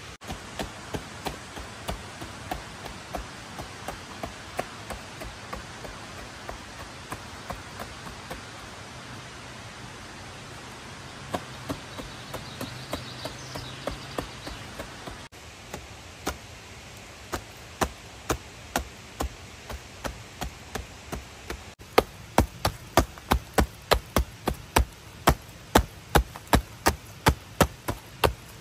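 A steady series of sharp knocks or chopping strikes, light at first and loudest in the last several seconds, where they come about two to three a second, over a steady rush of running water.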